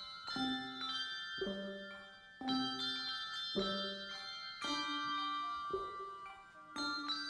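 Bells playing a slow melody: a struck chord about once a second, each ringing on with a shimmering, bell-like tone.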